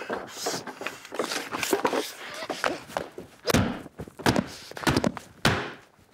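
Heavy thuds and knocks on wooden boards: a man's running footsteps pounding a wooden boardwalk. Lighter knocks come first, then four heavy thuds about 0.7 s apart in the second half.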